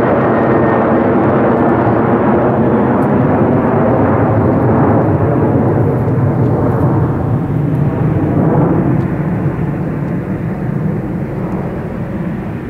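Boeing 737-800's twin CFM56-7B turbofan jet engines at takeoff thrust as the airliner climbs overhead and away, a loud steady jet noise that begins to fade in the last few seconds.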